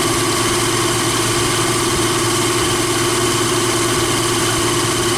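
Jeep Wrangler YJ engine idling steadily while it drives its belt-driven onboard air compressor, which is pumping the air tank up toward its 125 psi shut-off.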